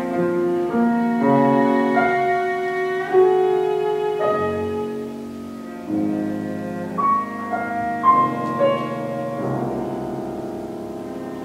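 Cello and piano playing classical chamber music: the cello holds long bowed notes over piano chords and single notes, the melody moving by one note every second or two.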